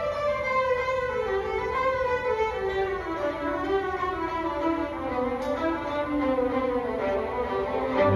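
High school string orchestra of violins, cellos and double basses playing; the melody steps downward in pitch over several seconds, and the lower strings come in louder near the end.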